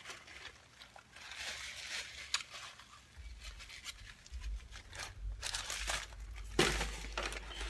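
Faint crinkling and rustling of food packaging being handled, with small clicks and taps, a low rumble from about three seconds in, and a louder rustle near the end.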